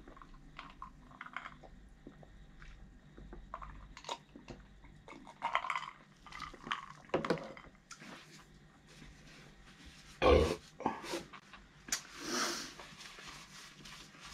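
Close-up eating sounds: chewing air-fried duck, with scattered mouth clicks and small noisy bursts. A louder, short mouth noise comes about ten seconds in, and a breathy rush follows about two seconds later.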